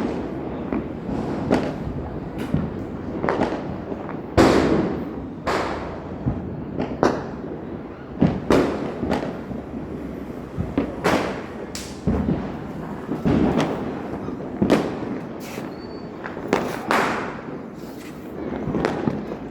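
Diwali firecrackers going off one after another: sharp bangs roughly once a second at irregular spacing, several with an echoing tail, the loudest about four seconds in.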